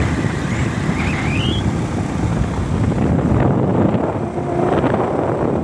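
Moving vehicle on a paved road: a steady, loud rush of wind buffeting the microphone over road and engine rumble. A thin, high whistle dips and then rises in the first second and a half.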